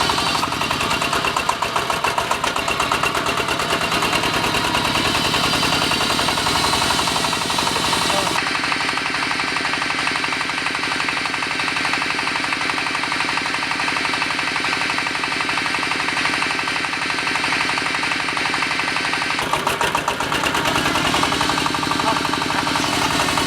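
Diesel engine of a hydraulic water-well drilling rig running steadily with a fast, even clatter. Its sound changes abruptly twice, about a third of the way in and again near the end.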